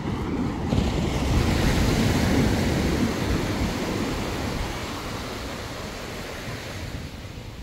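Sea waves breaking on the beach: a wash of surf that swells about a second in, peaks, and then slowly dies away.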